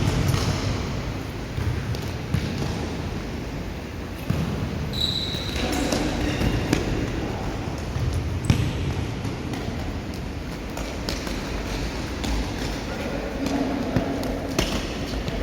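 Indoor futsal play in a hall: the ball being kicked and thudding, with players' shoes and faint voices echoing around the court. A short high squeak comes about five seconds in.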